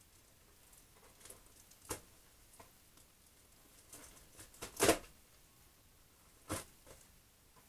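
Plastic bag crinkling as it is handled, in a few short, sharp rustles, the loudest cluster about halfway through.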